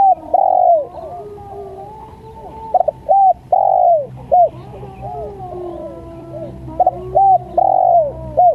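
Spotted dove (tekukur) cooing: phrases of a few short quick coos ending in a longer drawn-out note, repeated three times, with fainter cooing running behind.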